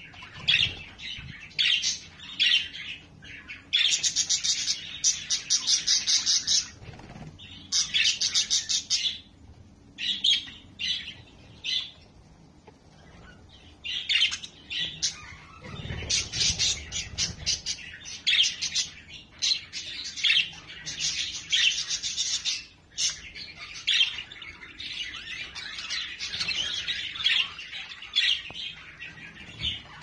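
A flock of budgerigars chattering and warbling, with fast trills of high chirps coming in bursts of a second or two.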